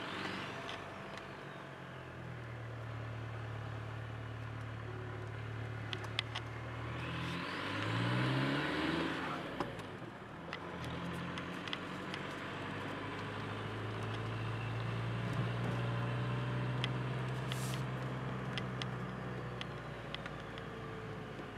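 Opel Vectra B turbodiesel engine heard from inside the car while driving, running steadily at low revs. About a third of the way in it accelerates: the engine pitch climbs and a rushing whoosh swells over it. It then drops back to a steady cruise.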